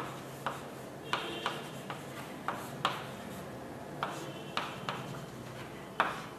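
Writing sounds: about ten soft, irregularly spaced taps and clicks with a few brief faint scratches, as a molecule is written out, over a faint steady low hum.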